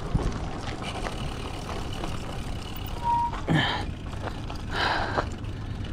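Road-bike tyres rolling over a rough gravel road, with steady wind noise on the camera microphone. A short beep sounds just after three seconds, followed by two brief louder bursts.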